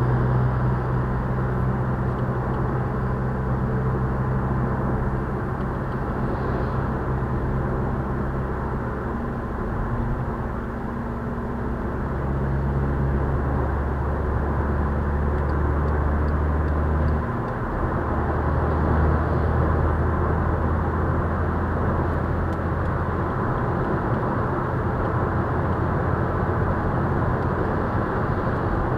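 Steady road and engine noise inside a Volkswagen Scirocco cruising at motorway speed, with a low hum that changes pitch slightly about seventeen seconds in.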